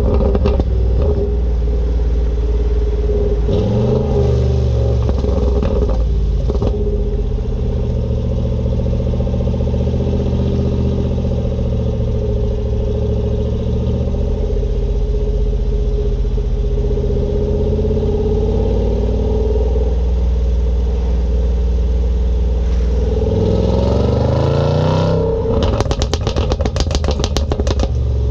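2017 Range Rover SVR's supercharged V8 on its standard exhaust, running steadily with a quick rise in revs about four seconds in and another near the end. After the second rev the exhaust pops and crackles rapidly for a couple of seconds as the throttle closes.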